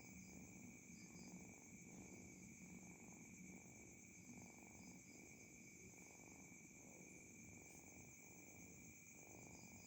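Domestic cat purring faintly, pulsing steadily with each breath about every three quarters of a second. A steady high-pitched ringing runs underneath.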